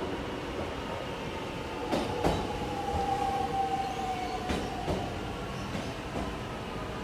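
Alstom X'trapolis electric train running with a whining motor tone that slowly falls in pitch. Several sharp clacks of the wheels over rail joints come about two seconds in, twice more near the middle, and once more near the end.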